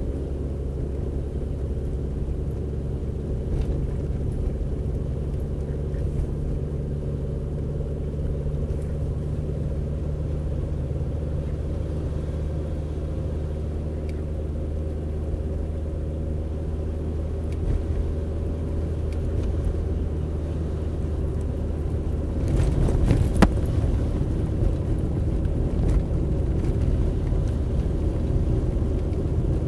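Car engine and road noise heard from inside the cabin while driving: a steady low hum. About 22 seconds in the noise grows rougher, with a single sharp click just after.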